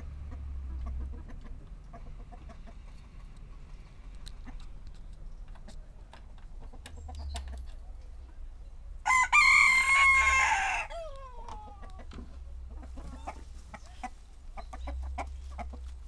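Domestic chickens clucking and calling around a coop, with a rooster crowing once, loudly, for about two seconds about nine seconds in.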